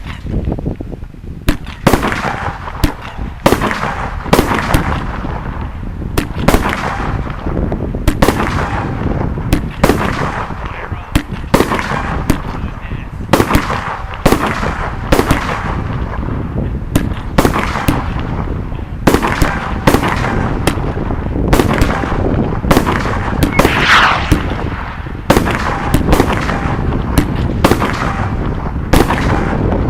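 A 30-shot, 500-gram consumer fireworks cake (Hardcore Pyro 'Heisenberg') firing its shots in quick succession. Sharp bangs of launching and bursting shells come one to two a second, overlapping, with a steady low rumble between them.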